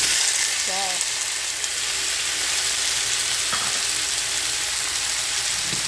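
Diced tomato and onion sizzling in hot olive oil in a frying pan: a steady hiss that starts all at once as the vegetables hit the oil.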